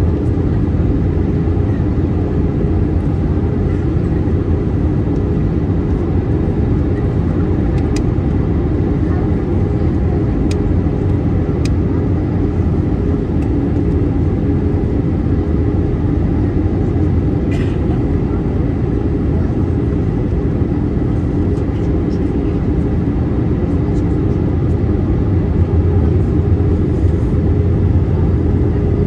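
Steady cabin drone of an Airbus A321 in descent on approach: engine and airflow noise, even and low-pitched throughout, with a few faint clicks.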